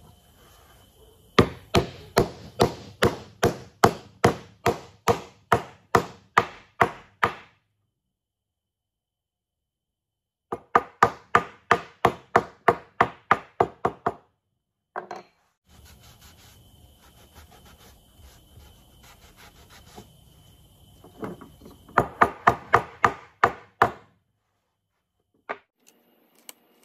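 A wooden mallet tapping on wood in quick, even strokes, about three a second, in three runs. Between the second and third runs there is softer scraping and handling of wood.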